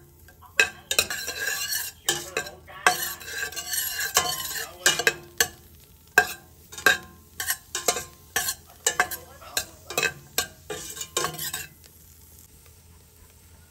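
Metal utensil scraping and clinking against the bottom and sides of a stainless steel pot while lemongrass and ginger are stirred, with a light sizzle as they fry. The strokes come in quick sharp scrapes, about two a second, and stop about two seconds before the end.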